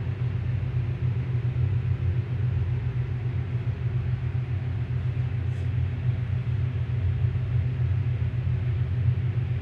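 Ice machine running with a steady low hum as it fills its trays with water and starts cooling for an ice-making cycle. The strange noise that made it be shut down is absent, and the machine sounds normal.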